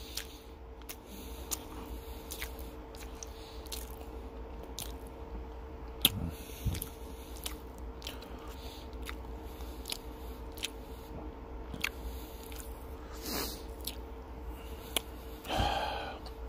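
Close-miked chewing and mouth sounds of a person eating a double cheeseburger: scattered wet clicks, with a few louder bites about 6 and 13 seconds in, over a faint steady hum.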